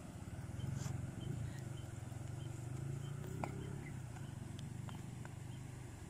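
Steady low outdoor rumble with a few faint, scattered clicks and a brief thin tone about three and a half seconds in.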